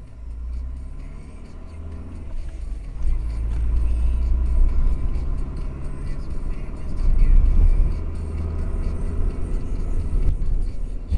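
Low, steady rumble of a car's engine and tyres while driving, heard from inside the car. It swells louder a few seconds in and again past halfway.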